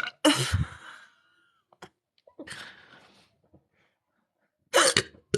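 A woman with the hiccups: a sharp hiccup at the start that trails off into an exhale, a softer breathy sound around the middle, then two quick sharp hiccups near the end.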